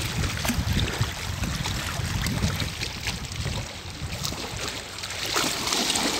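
Wind buffeting the microphone in a low, uneven rumble, over choppy water lapping against the rocks of the shore.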